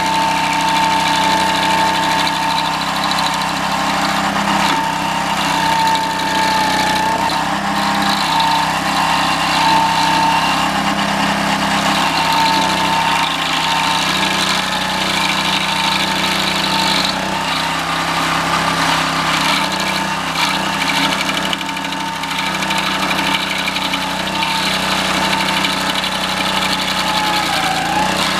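Small single-cylinder Honda 6.5 hp engine on a homemade stump grinder, running steadily.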